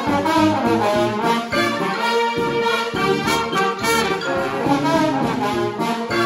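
Brass band playing live: several horns sound chords that change every fraction of a second over a low bass line.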